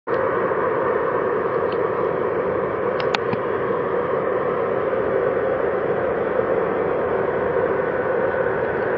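Steady rushing roar of distant jet airliner engines, with a couple of faint clicks about three seconds in.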